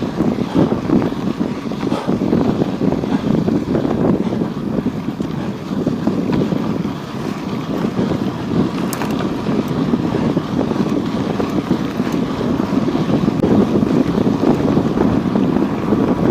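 Wind buffeting the microphone of a chest-mounted action camera: an uneven rushing noise that swells and dips, a little louder near the end.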